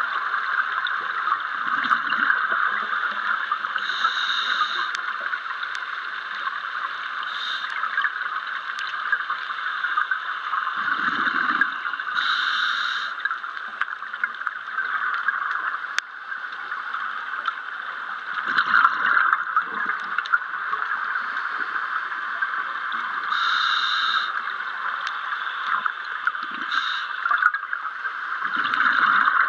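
Underwater sound of a scuba diver breathing through a regulator, heard through the camera housing: a steady hiss with a short, higher hissing breath and a separate low bubbling burst recurring every few seconds.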